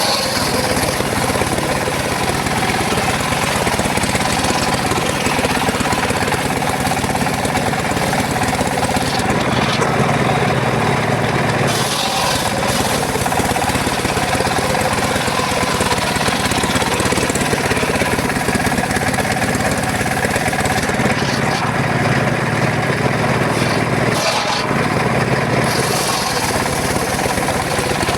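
Engine-driven mobile circular sawmill running steadily with its large circular blade sawing mahogany logs. The sound shifts briefly about twelve seconds in and again near the end.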